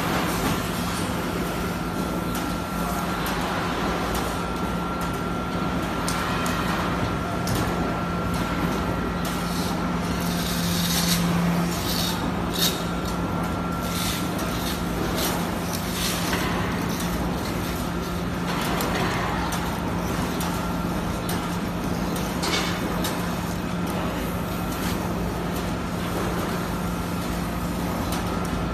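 Short-cycle melamine hot press line running, with a steady machine hum and noise. Scattered sharp knocks and clacks come through the middle of the stretch as laminated boards are handled on the table.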